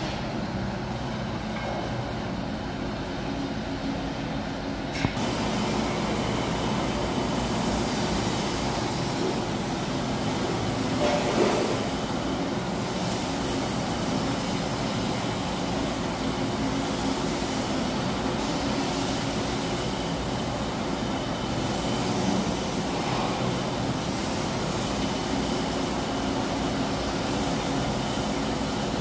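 Mobile crane's diesel engine running steadily, a constant low mechanical hum, with a brief louder surge about eleven seconds in.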